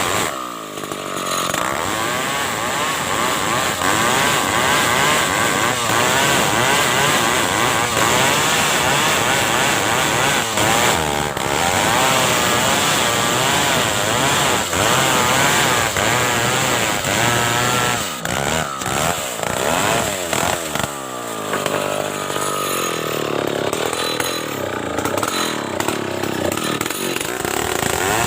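Stihl chainsaw cutting a large ulin (Bornean ironwood) log into planks, its engine pitch wavering under load. The pitch dips and picks back up shortly after the start and again about three quarters of the way through.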